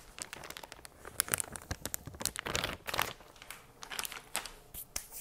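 Plastic bag of shredded cheese crinkling as it is handled, a quick run of irregular crackles.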